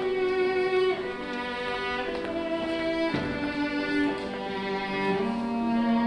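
Music of bowed string instruments playing slow, sustained notes, several pitches at once, changing every second or so.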